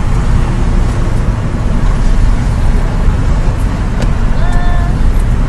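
Steady road and wind noise from a moving car with its window rolled down, heaviest in the low end. A short high tone is heard about four and a half seconds in.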